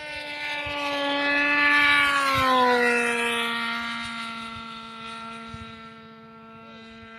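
F3R pylon-racing RC model airplane's small two-stroke glow engine screaming past in a flyby: it grows louder, its pitch drops about two and a half seconds in as it passes, then it fades away.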